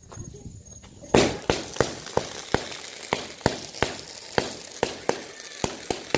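Firecrackers going off: one loud bang about a second in, then a run of sharp cracks, about three a second.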